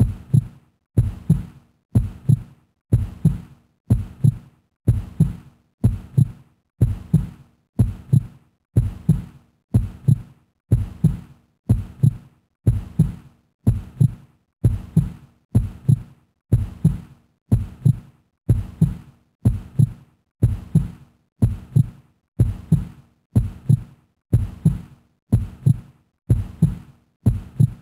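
Heartbeat sound effect: a low double thump repeating steadily, about once a second.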